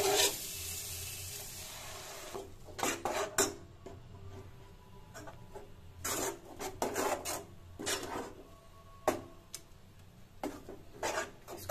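Spinach purée sizzling as it goes into hot oil and fried masala, the hiss fading over the first two seconds. Then a spatula scrapes and stirs the thick purée around the pan in irregular strokes.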